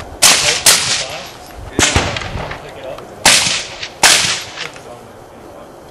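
Five shots from a handgun fitted with an AAC Cyclone silencer, each a sharp crack with a short ringing tail: a pair, a single, then another pair.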